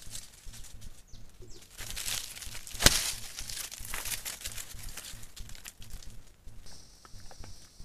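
Doves flying in and landing on leaf litter: wing flaps and rustling of dry leaves, with one sharp wing clap about three seconds in.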